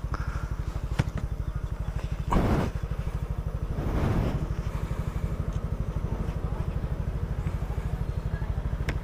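Motorcycle engine running at a low, steady putter, about ten firing pulses a second. A short louder rush of noise comes about two and a half seconds in.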